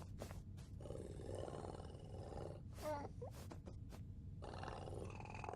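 Cartoon cat sounds, voiced by a person: a rough, rumbling purr with a few clicks, and a short mewing call about three seconds in.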